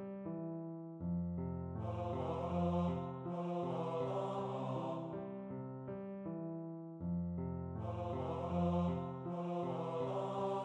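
Computer playback of a score for tenor voice and piano: a sampled choir-like voice holds the slow melody over flowing piano arpeggios.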